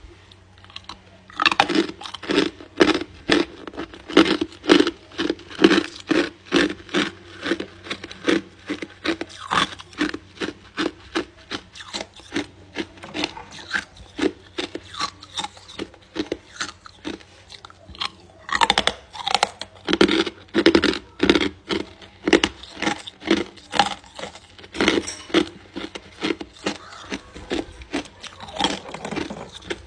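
Hard clear ice crunched between the teeth close to the microphone: a steady run of crunches, about three a second, starting about a second and a half in.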